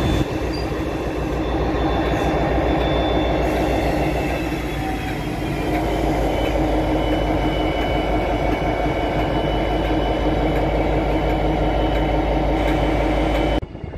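Class 57 diesel-electric locomotive with an EMD two-stroke V12 engine running loud and steady as it passes slowly close by, with a faint high whine that drops slightly in pitch. The sound cuts off abruptly near the end.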